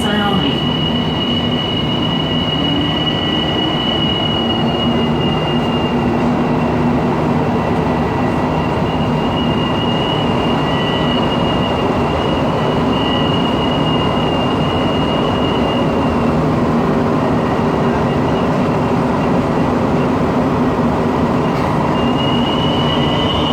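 Montreal metro train running, a steady rumble with a low hum beneath and a high, steady whine on top. The whine fades about six seconds in, comes and goes, and returns strongly near the end.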